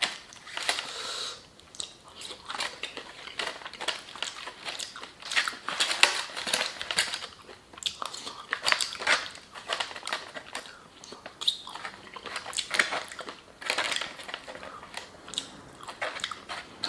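Close-miked eating: a person chewing and smacking on mouthfuls of creamed corn, with many short wet clicks at an irregular pace.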